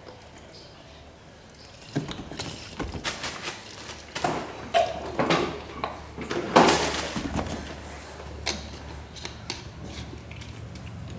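A run of irregular knocks, clicks and rustles, like things being handled and set down, loudest between about two and seven seconds in, over a low steady hum.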